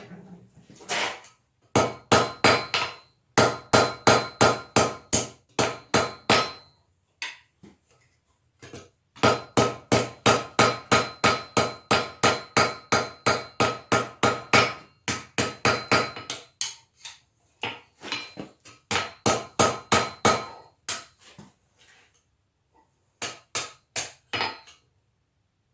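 Blacksmith's hand hammer striking steel on an anvil in steady runs of about three blows a second, the anvil ringing with each blow, with two short pauses between runs.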